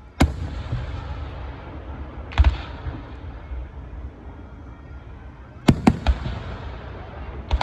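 Fireworks shells bursting: five sharp bangs, the first a moment in, another about two seconds later, then two close together around six seconds and a last one near the end, each followed by a long rumbling echo.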